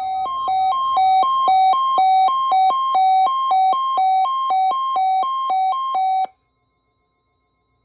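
Electronic two-tone alert signal on the NOAA Weather Radio broadcast. A buzzy tone alternates between a lower and a higher pitch, about two and a half high-low cycles a second, and cuts off suddenly about six seconds in.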